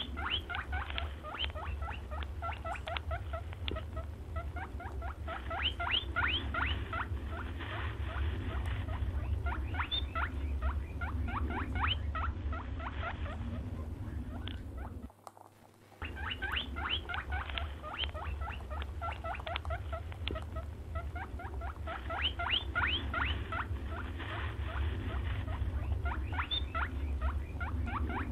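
Rapid high squeaks and chitters in quick runs, presented as the call of a brown hare, over a low steady hum. The sound breaks off briefly about halfway, then resumes in the same pattern.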